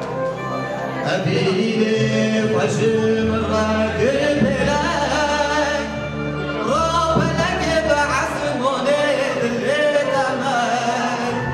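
A man sings through a microphone in a wavering, ornamented voice that slides between notes, accompanied by a Korg Pa4X arranger keyboard playing sustained chords and bass.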